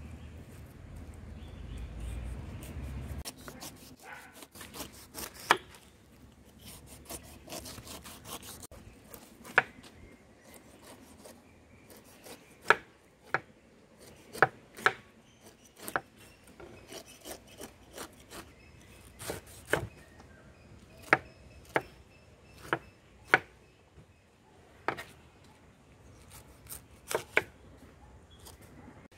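Large kitchen knife cutting the rind off a whole pineapple on a wooden cutting board: scraping strokes through the tough skin, with sharp knocks at irregular intervals as the blade strikes the board. A low rumble fills the first three seconds.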